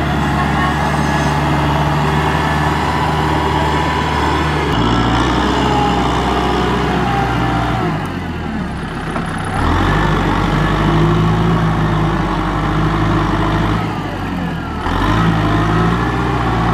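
Kubota M6040SU tractor's diesel engine running under load as it works through deep mud, its note shifting several times.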